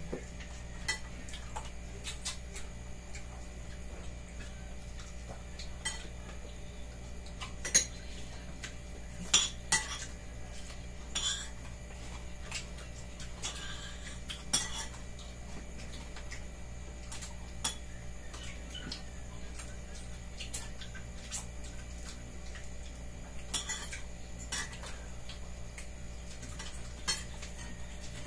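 Cutlery and dishes clinking during a meal: spoons and forks tapping and scraping on plates at irregular moments, with the loudest clinks about 8 and 10 seconds in.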